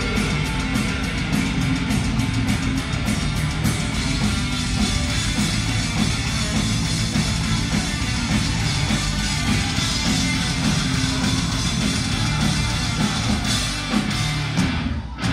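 Folk metal band playing live with no vocals: distorted electric guitars, bass and drum kit in a dense, loud wall of sound over fast, steady drumming. Heard from the audience in the venue, the sound thinning briefly just before the end.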